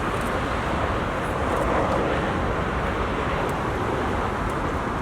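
Steady, even roar of a jet airliner's engines, with no distinct tones or changes.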